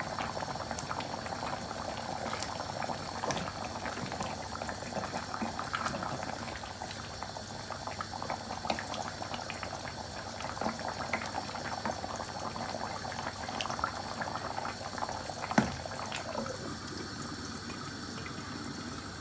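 Fish, potato and tomato curry boiling in a metal pot, bubbling with many small pops. Near the end a single sharp clink as a glass lid is set on the pot, after which the bubbling is quieter.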